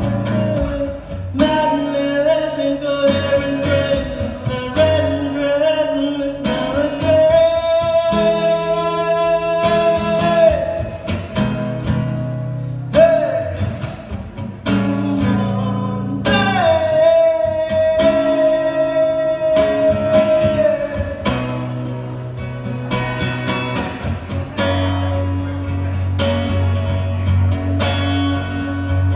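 A man singing, holding some notes long, while playing an acoustic guitar.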